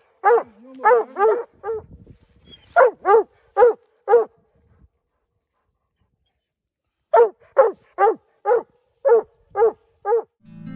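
Young squirrel dog barking treed up a tree trunk: quick, sharp chop barks at about three a second, in three runs with a pause of about two seconds before the last run. It is the pup baying at a tree where it has located a squirrel.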